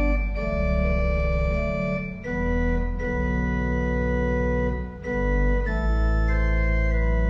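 Organ playing slow sustained chords over deep bass pedal notes, the chord changing about two seconds in and again about five seconds in.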